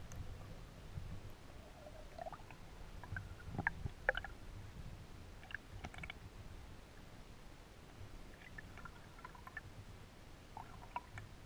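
Underwater ambience picked up through a GoPro's waterproof housing: a steady muffled low rumble with scattered small clicks and short squeaks, the strongest cluster about four seconds in.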